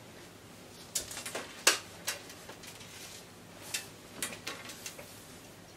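Cotton wax-print fabric and a tape measure being handled on a tabletop: a handful of short rustles and light taps, the sharpest about a second and a half in.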